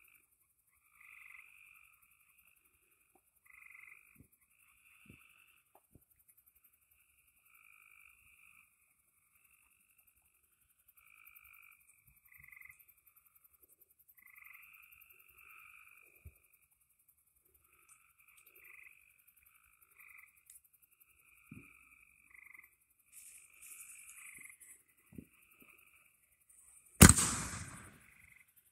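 Frogs calling in short, repeated calls, a higher and a lower note together. Near the end a Brothers American Chief mortar fires its shell from the tube with one loud, sudden launch bang that dies away over a second or so.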